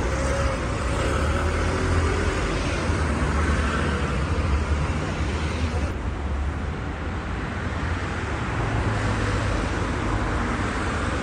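Street traffic: a steady low rumble of road vehicles passing.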